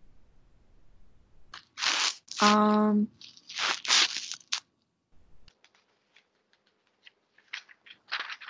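Several loud bursts of rustling close to a computer microphone, with a short steady hum about two and a half seconds in, then a run of faint scattered clicks and one more rustle near the end.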